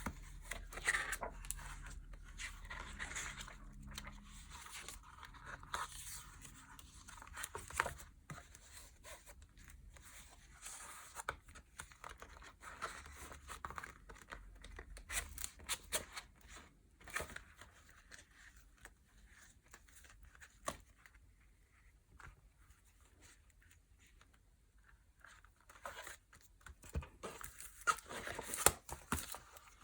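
Packaging crinkling and rustling as it is unwrapped by hand, in irregular bursts with scattered clicks and taps. It goes quieter for a stretch past the middle and gets busier again near the end.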